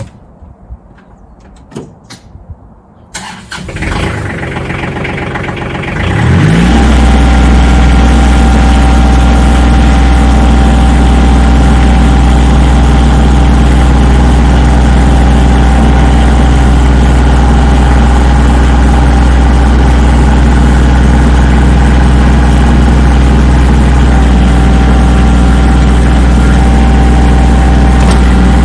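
A few light clicks, then an engine starts about three seconds in and rises in pitch as it catches around six seconds in. It then runs loud and steady, with a strong low hum.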